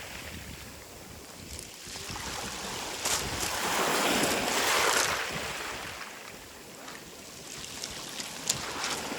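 Waves washing up a beach of smooth, surf-rounded pebbles, the wash swelling and falling away about every five seconds, with pebbles clicking and rattling against each other in the surf.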